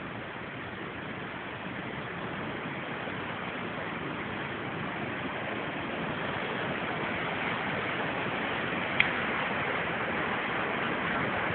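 Steady rushing of falling water from a waterfall on the Krka river, slowly growing louder. A single sharp click about nine seconds in.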